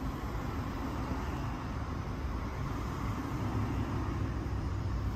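Steady low rumbling background noise with a faint hiss, and no distinct events.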